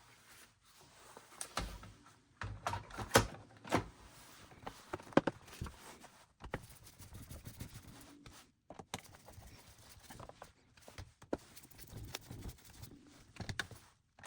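Handling noise from refitting a Roomba i7's suction motor assembly into the robot's plastic housing: irregular clicks and knocks, the loudest about three and five seconds in.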